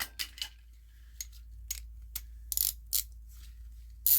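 Husky hand ratchet being swung back and forth, its pawl clicking over the gear teeth in short, irregular bursts of sharp clicks.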